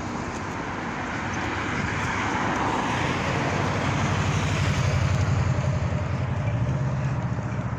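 Road traffic: a passing car's engine and tyre noise swells to a peak about halfway through and fades toward the end.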